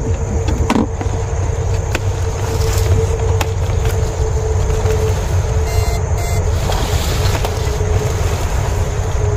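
Homemade transistor-type electrofishing rig running: a steady low rumble with a thin steady hum that fades about five seconds in, and a few light clicks.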